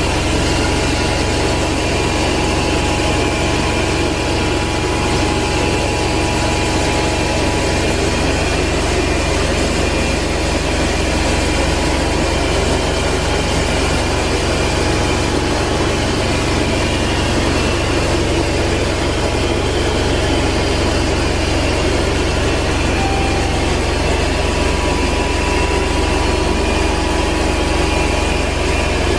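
Rotovac 360 rotary carpet extractor running steadily: a loud, even whir and suction hiss as its spinning heads and vacuum pull the cleaning solution back out of the carpet.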